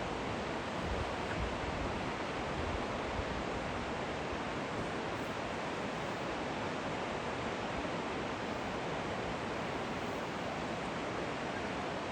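Flowing water rushing steadily, an even unbroken wash of sound.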